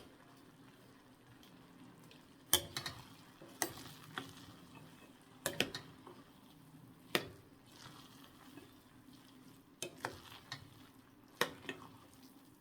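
A spoon stirring cooked pilau rice in a cooking pot, knocking sharply against the pot every second or two.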